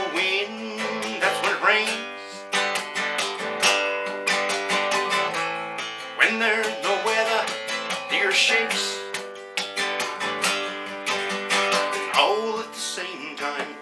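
A classical-style acoustic guitar is strummed steadily, with rhythmic strokes. A man's voice rises over it in places.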